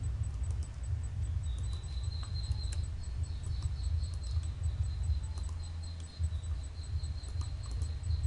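Steady low hum of a desk microphone's room noise with a thin high whine and a faint, fast, even ticking above it, much like an insect chirring. A few light mouse clicks are scattered through it.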